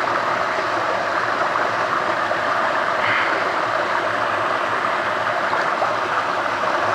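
River water rushing steadily, a continuous even noise, with water swirling around a gold pan held under the surface.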